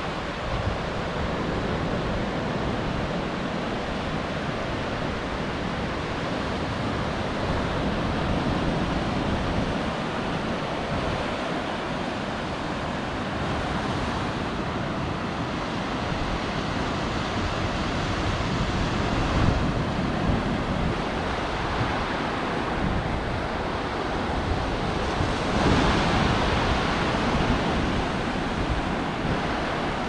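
Small ocean waves breaking and washing up a flat sandy beach: a steady surf wash that swells louder a few times as waves break and the foam runs up the sand.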